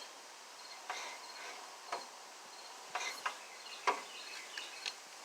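Faint insect chirping, a thin, broken high trill, with about six light sharp clicks scattered through it.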